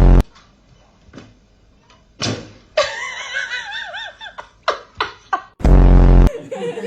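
People laughing in high-pitched giggles. A loud, steady, flat buzz cuts in briefly at the start and again near the end.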